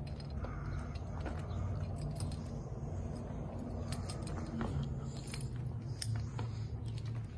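Footsteps crunching over broken tile and rubble, with scattered sharp clicks and clinks of debris shifting underfoot, over a steady low rumble.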